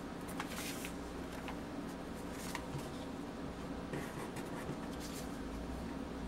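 Paper planner sticker sheets rustling and sliding against one another as they are shuffled and moved by hand, in several short swishes over a low steady hum.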